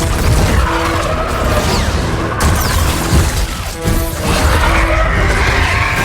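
Otachi kaiju sound effects: creature calls amid crashing and shattering, with music underneath.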